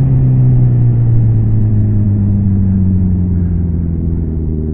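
Suzuki B-King motorcycle engine heard on-board while riding, its revs falling slowly as the rider rolls off the throttle approaching a bend, over a steady rush of wind and road noise.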